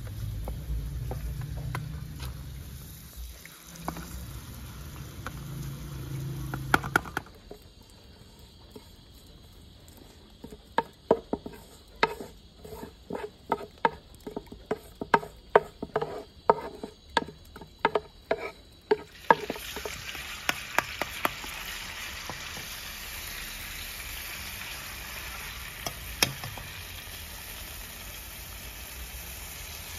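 Potato slices sizzling in oil in a frying pan, stirred with a wooden spatula. Then a run of sharp, regular knocks, about two a second, from a knife chopping herbs on a wooden board. After that, a steady hiss from a pot cooking on the burner.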